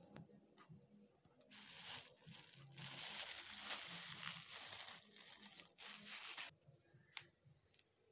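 Plastic bags crinkling and rustling as they are handled, in several bursts of a second or more from about a second and a half in until about six and a half seconds in.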